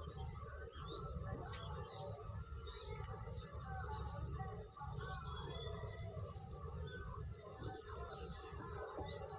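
Birds chirping in quick, scattered short chirps over a steady low rumble.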